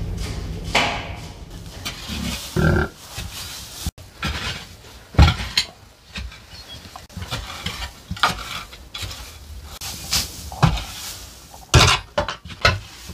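Irregular knocks, thuds and rustling as animals move about on straw in a wooden barn, with a short pitched sound about two and a half seconds in.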